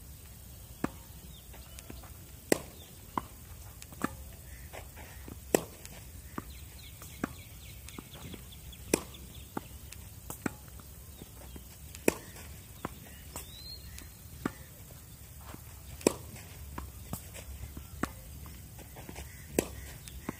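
Tennis balls struck with racquets in a fed drill: a sharp crack of ball on strings about every three and a half seconds, with fainter hits and ball bounces on the court in between.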